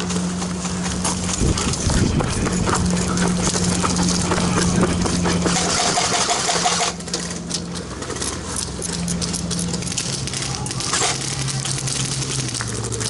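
A steady mechanical hum, dropping lower in pitch near the end, with dense rattling clicks over it.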